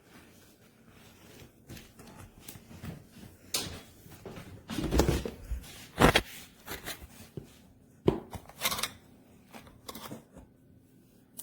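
Handling noises: irregular rustling, clicks and knocks of small objects and containers, with the sharpest knock about six seconds in.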